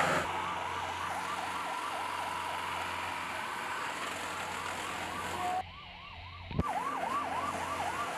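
Emergency-vehicle siren on a fast yelp, sweeping down and back up about two to three times a second. It breaks off briefly a little after halfway and comes back with a sharp click.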